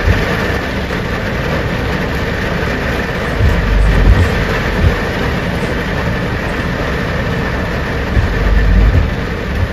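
Heavy monsoon rain pouring down and pelting the glass, heard from inside a vehicle, over a steady vehicle engine rumble. The low rumble swells about three and a half seconds in and again near the end.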